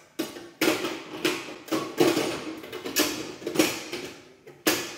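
Metal bread pan being pushed and worked into the housing of a bread machine: about ten irregular clunks and rattles, metal knocking against the machine, as it is seated.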